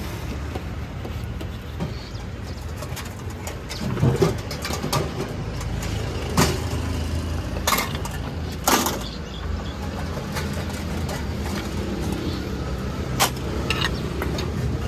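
Busy street ambience: a steady traffic rumble with a handful of sharp clinks and knocks scattered through it.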